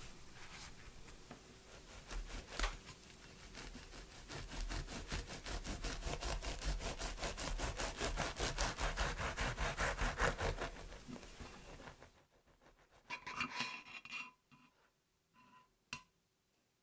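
Knife sawing back and forth through a soft white-bread sandwich filled with whipped cream: a fast, even rasping of several strokes a second that stops about eleven seconds in. A few short soft taps follow near the end.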